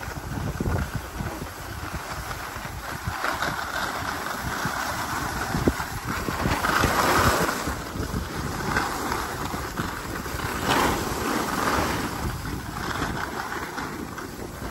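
Skis sliding and scraping over groomed snow, with wind rumbling on the microphone; the scraping hiss swells and fades several times.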